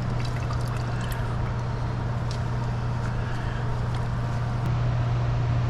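A steady low hum, like an electric motor, under a constant wash of running, trickling water, with a few faint clicks.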